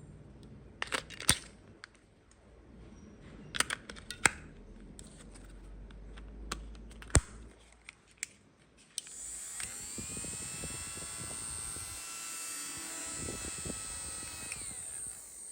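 Small plastic toy playset pieces clicking and tapping as they are handled and set down, several sharp clicks over the first eight seconds. From about nine seconds a steady hissing sound with faint held tones runs for about six seconds, then stops.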